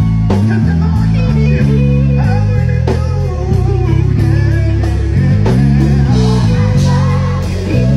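Live gospel band playing: electric guitar lines over sustained low bass and keyboard chords, with steady drum hits.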